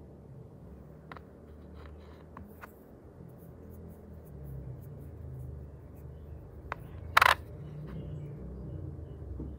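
Fingers handling and turning nickel-plated Thai 2-baht coins: a low steady rumble of handling with a few light clicks, and one short, louder scrape a little after seven seconds.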